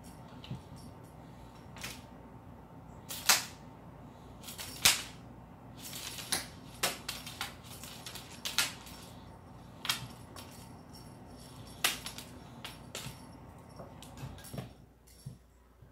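Cat pouncing and scrambling on a hardwood floor: irregular sharp clicks and knocks of claws and paws on the wood, a handful of them loud, over a low steady hum.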